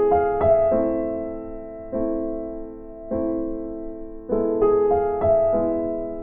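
Background piano music: slow chords, each struck and left to fade, roughly one a second.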